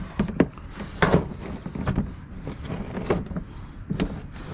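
Plastic inner fender liner being pushed and worked into a truck's wheel well, knocking and clattering against the fender several times at irregular intervals.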